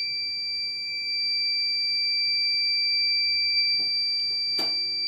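Buzzer of a homemade LPG gas-leak detector sounding a loud, continuous high-pitched tone, its alarm that leaking cooking gas has been detected. A single click near the end.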